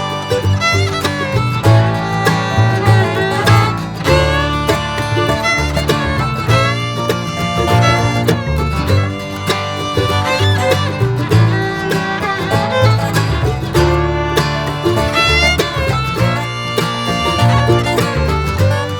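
Background music: a lively string-instrument tune with a steady beat.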